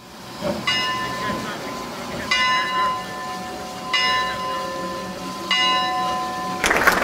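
Locomotive bell ringing slowly, four strokes about a second and a half apart, each left to ring on. A rushing noise swells up near the end.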